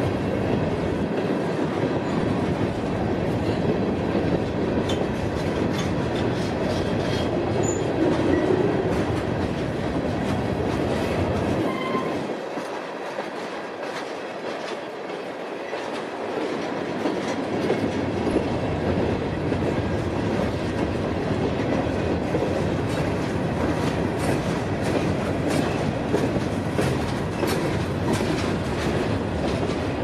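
Herzog gondola cars of a freight train rolling past, steel wheels clicking over the rail joints in a steady clatter. The low rumble eases for a few seconds about halfway through, then comes back.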